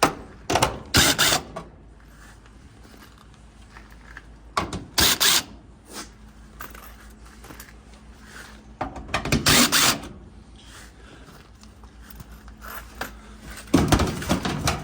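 Four short bursts of mechanical rattling and clatter, a few seconds apart, as the front panel is worked loose from a Maytag dryer.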